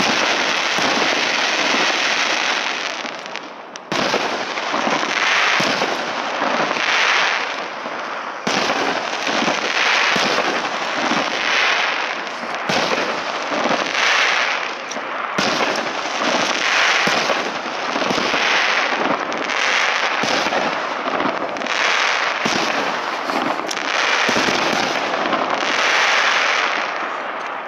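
Fireworks display: aerial shells bursting overhead into crackling glitter stars. A dense, continuous crackle swells and fades about once a second, with sharp bangs about four, eight and fifteen seconds in.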